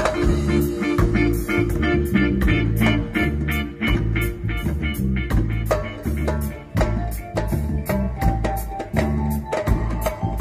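Live reggae band playing an instrumental passage: drum kit and electric guitar on a steady beat over deep low notes, with a held note joining about eight seconds in.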